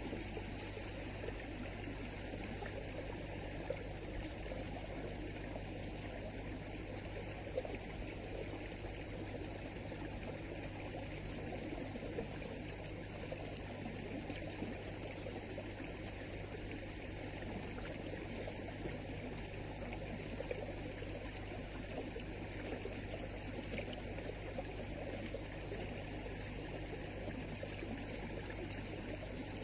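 A small stream running over rocks: a steady rush of flowing water, with a low electrical hum beneath it.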